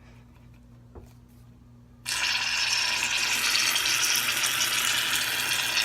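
Aerosol can of shaving foam spraying: a steady hiss that starts about two seconds in.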